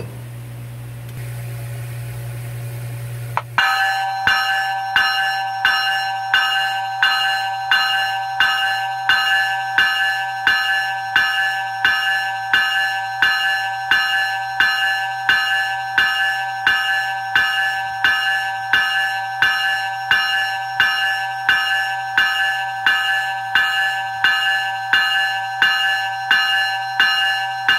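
Graham-White E-Bell 373-011 locomotive bell ringing extremely loud: evenly repeated strikes, about three every two seconds, each leaving a bright sustained ring. It starts a few seconds in after a steady low hum, and stops near the end.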